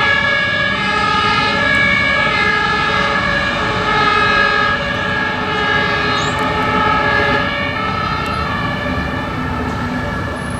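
German two-tone fire-engine sirens (Martinshorn) sounding on an emergency run, stepping back and forth between two pitches over the rumble of heavy vehicles. The sound eases slightly near the end.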